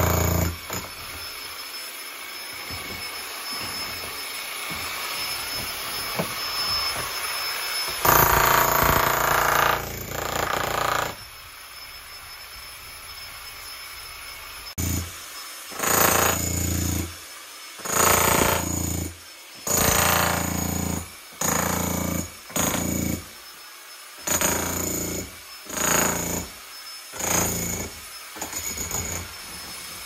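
Makita electric demolition hammer with a chisel bit, hammering into a concrete floor slab and breaking it up. It runs fairly steadily at first, louder for a few seconds around a third of the way in. In the second half it goes in about ten short bursts of a second or so each, stopping and starting between them.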